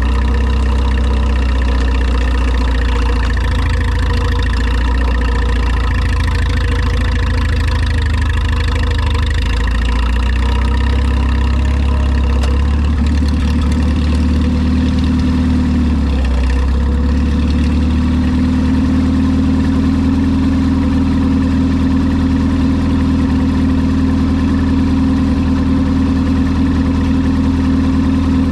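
Old Minneapolis-Moline tractor engine running steadily. About sixteen seconds in its speed dips briefly, then settles at a slightly higher steady pitch.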